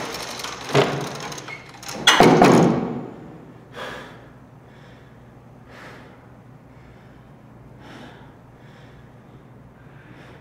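Apartment door being handled and then shut with a loud bang about two seconds in, with knocks of the latch and door just before. A few faint short sounds follow, about two seconds apart.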